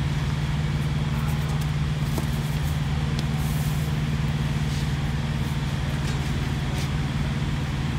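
Steady low machine hum with no change in pitch, with a few faint light clicks over it.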